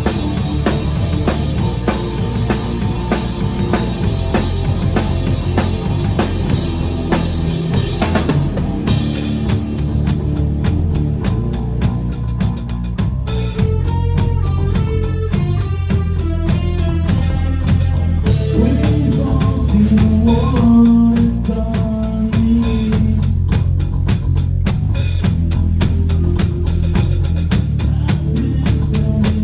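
Rock band playing live: a drum kit keeping a steady beat under guitar, with held, bending notes in the middle of the stretch.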